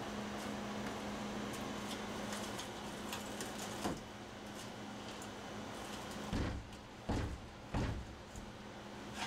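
Three dull thumps with a few lighter knocks as a man braces inside a fiberglass boat hull and pushes against a dented panel to force it back into shape.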